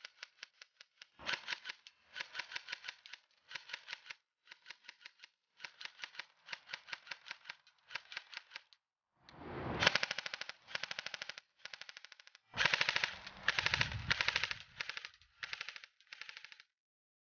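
Echo 1 Genesis Viktor, a PP-19 Bizon-style electric airsoft gun (AEG) with a version 3 gearbox, firing on full auto in a string of bursts, each a fast rattle of shots. The bursts in the second half are longer and louder.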